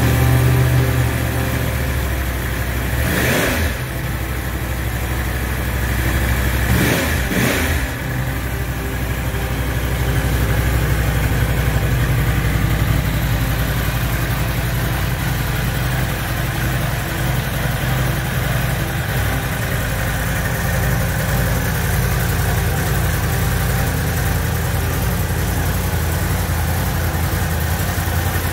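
Yamaha YZF-R1M's crossplane inline-four engine idling steadily in neutral, with two brief louder bursts about three and seven seconds in.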